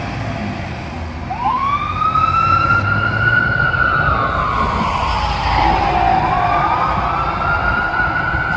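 Fire engine siren on a 2019 Spartan Metro Star pumper sounding a wail as the truck pulls away: it winds up about a second in, falls slowly over several seconds, then winds up again and holds high near the end. The truck's engine rumbles low beneath it.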